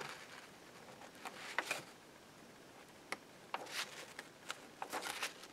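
Pages of an old ring-bound cookbook being turned by hand: faint, brief rustles of aged paper with scattered light ticks.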